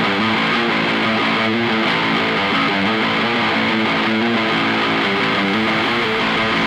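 Background rock music with a strummed guitar riff.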